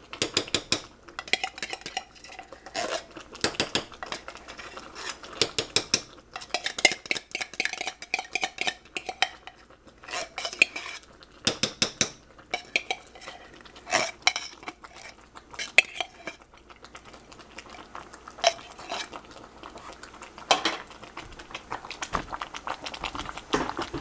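A spoon scraping and clinking against a tin can of condensed cream of chicken soup and the rim of a cooking pot as the soup is spooned out and stirred in. The clinks and scrapes come quickly and irregularly, then grow sparser over the last several seconds.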